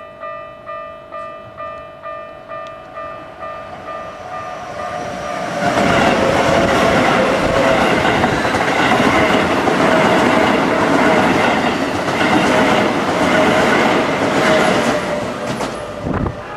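Level crossing warning bell ringing in an even beat of about two strokes a second. About five seconds in, a Hokuso 7300 series electric train passes for some ten seconds, loud, its wheels clattering on the rails and drowning out the bell. The bell is still ringing as the train fades near the end.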